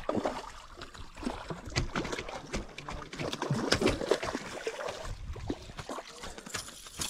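A hooked fish splashing and thrashing in shallow water at the bank as it is reeled in on a baitcasting reel. The splashes come irregularly and are loudest around the middle.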